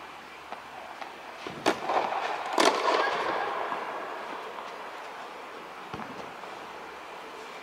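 Tennis balls struck by rackets: two sharp hits about a second apart, the second the loudest, each ringing on in the long echo of an air-supported tennis dome. A fainter hit follows near the end.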